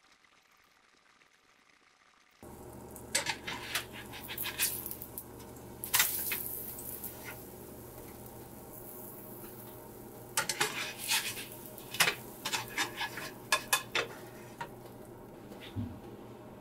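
Kitchen utensils clinking and scraping against a nonstick frying pan over the faint sizzle of a pancake cooking. The sounds start about two seconds in and come in several clusters of sharp clinks.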